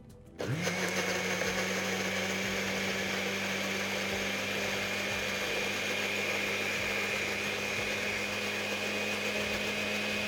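Countertop electric blender switched on about half a second in, its motor spinning up quickly to a steady whir as it purées a marinade of vegetables, herbs and oil.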